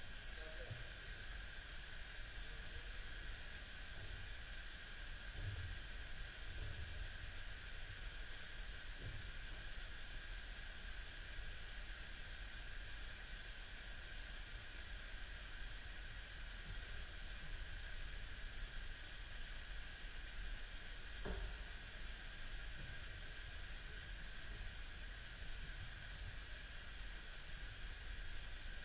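Steady hiss of an artificially generated leak jetting into water, recorded underwater by a hydrophone, with a few faint low knocks.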